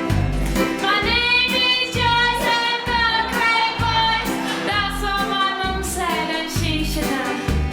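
A young female voice singing a song over a backing track with a steady bass beat, holding long notes from about a second in.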